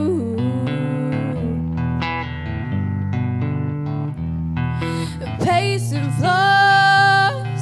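A girl singing a slow pop ballad live into a microphone over instrumental backing. About five and a half seconds in she slides up into a long held note that lasts over a second.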